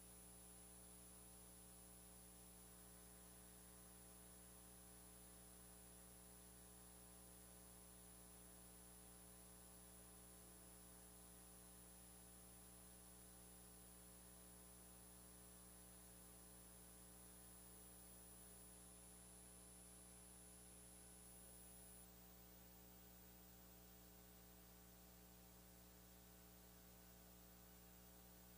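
Near silence: a faint steady electrical hum, with a thin high whine that stops about three-quarters of the way through.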